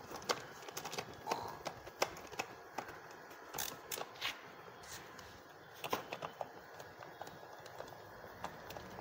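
Scattered light clicks and knocks of hand work on a transfer case as it is being put back together, with a few sharper knocks about two, four and six seconds in.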